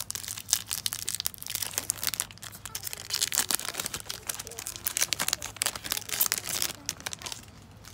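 Foil-lined trading-card pack wrapper being torn open and crinkled by hand: a dense run of crackles that thins out near the end.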